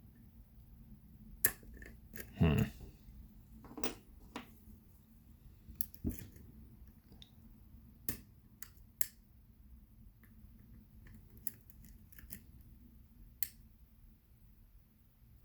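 Lock pick and tension wrench clicking and scraping inside a pin-tumbler lock's keyway as a hook works the back pins. About a dozen sharp, scattered clicks, with a brief louder scrape about two and a half seconds in.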